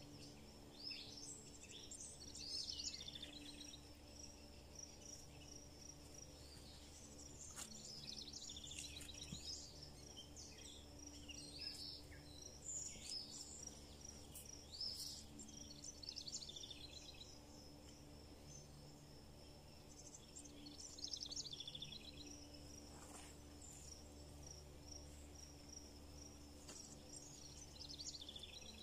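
Faint garden ambience: songbirds chirping and calling on and off over a steady, high, pulsing insect trill.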